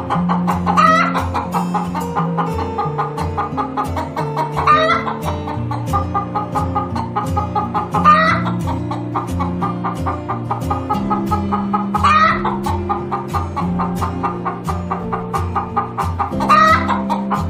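Rooster giving short calls that rise in pitch, five times, about every four seconds, over background music with a steady beat and bass line.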